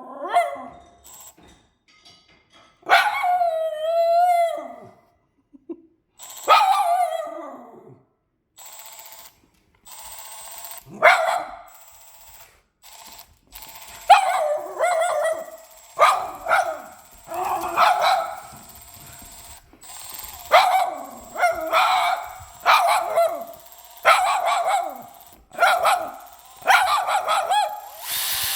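Dog barking and howling at an unfamiliar noise: a few drawn-out, wavering howls in the first half, then a run of barks about once a second through the second half.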